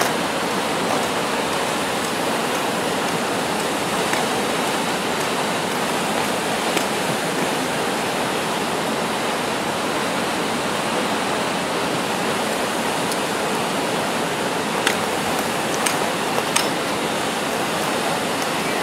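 Steady rushing of water from a waterfall, even and unbroken, with a few short clicks toward the end.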